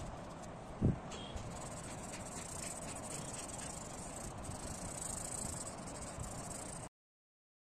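Steady high-pitched chirring of insects, likely crickets, with one low thump about a second in. The sound cuts out to silence about seven seconds in.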